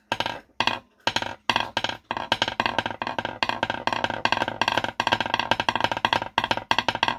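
Double-stroke roll played with two wooden dowel sticks on a wooden tabletop, each stick bouncing twice in turn. It starts as separate clusters of strokes about twice a second and speeds up into a nearly continuous roll a couple of seconds in.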